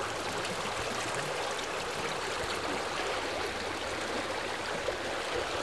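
Steady rush of running water, as of a flowing stream.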